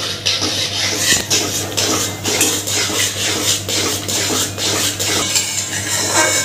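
A flat metal spatula scraping and knocking against a steel kadai as mawa is stirred into bubbling sugar syrup, in quick repeated strokes about three a second.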